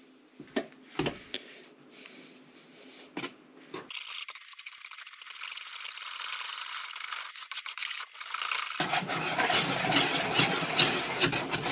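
Metal wire whisk beating egg, milk and flour batter in a plastic mixing bowl: a few light clicks at first, then steady scraping and swishing that grows louder, loudest in the last few seconds.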